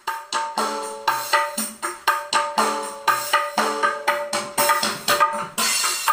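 Music with a quick, steady hand-drum beat and pitched instrument notes, played through a pair of JIC 06038 6-inch midrange speaker drivers sitting unmounted on their boxes. The drum hits come through crisp and clear.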